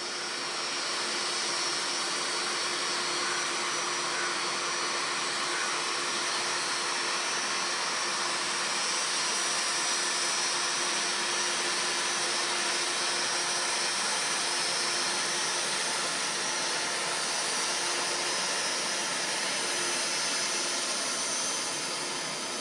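Boeing 777F's twin GE90 turbofans running at low taxi thrust, a steady jet whine and hiss that holds level throughout.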